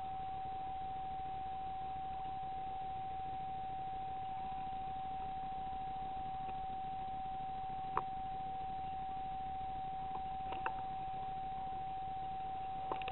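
A steady electronic whine, one unchanging tone, from the night-vision scope and recording electronics. A few faint clicks come about eight seconds in, twice around ten and a half seconds, and near the end.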